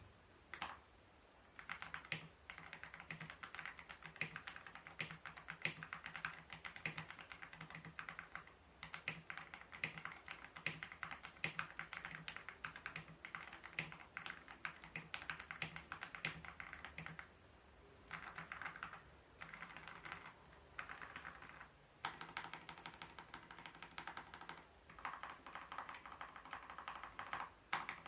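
Typing on a Tiger 80 Lite mechanical keyboard with hand-lubed JWICK Black 63.5 g linear switches: fast, continuous key presses, broken by a few short pauses.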